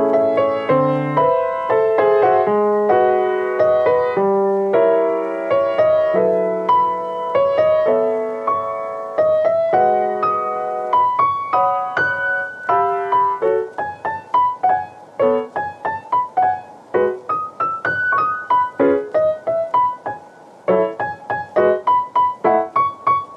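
Background piano music. It begins with full chords, then about halfway through it thins to single short notes with gaps between them.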